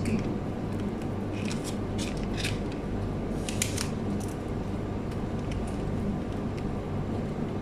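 Faint rustles and a few short scrapes from thin pastry sheets being handled and folded on a cutting board, over a steady low hum.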